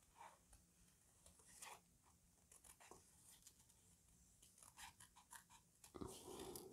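Faint snips of small paper scissors cutting a stamped image out of paper, a few scattered cuts at a time, with a louder rustle of the paper being turned in the hands near the end.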